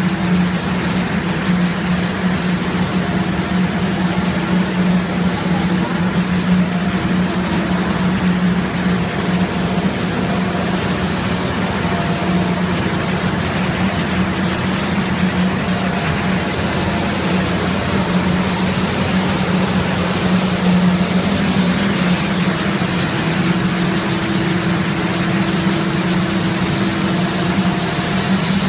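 Plastic film recycling machine with shredder, extruder and pelletizer (Dega DP-WR-85) running steadily: a continuous loud machine drone with a constant low hum.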